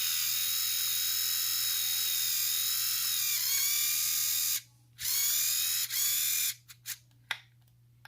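Small electric motor from a vintage Kenner X-Wing toy running with a high whine, freshly oiled after seizing up and powered through a screwdriver held on the battery contacts. About halfway through it cuts out, then starts again for about a second, twice, and gives a few brief spurts as the contact is made and broken.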